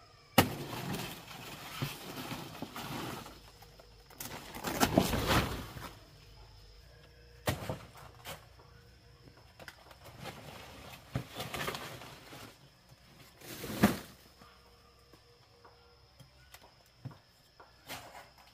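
Leaves and branches rustling in irregular bursts as foliage is pulled and pushed aside by hand, with a few sharp cracks of stems or twigs, the loudest about 14 seconds in.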